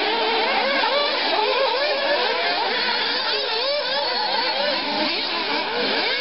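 Several 1:8 scale nitro off-road RC buggies racing, their small two-stroke glow-fuel engines revving up and down, with several engine notes overlapping.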